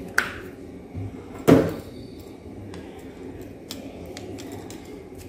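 Clicks and knocks of a small tester screwdriver and hands on an LPG cylinder regulator as its locking balls are pushed out of the collar: a sharp click just after the start, a louder knock about a second and a half in, then a few faint ticks.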